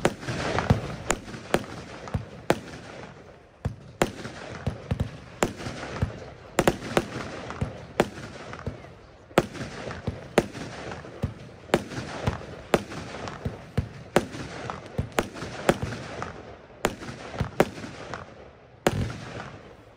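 Röder 'Billich und Willich Nr. 6' category F2 firework battery firing: sharp bangs and pops in quick, irregular succession, about one or two a second, as shots launch and burst.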